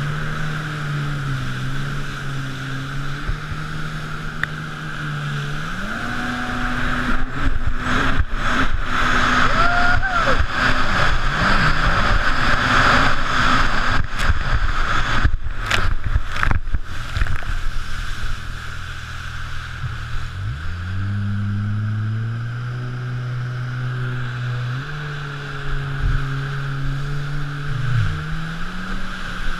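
Supercharged Rotax three-cylinder engine of a Sea-Doo RXP-X 260 jet ski under way, its pitch stepping up about six seconds in. Loud rushing wind and water spray at speed through the middle, with brief dropouts, then the engine drops back and revs up again near the end.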